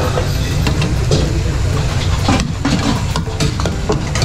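Long metal ladle scraping and knocking against a steel wok as a cook stir-fries, with short scattered clacks, over a steady low rumble from the busy wok station.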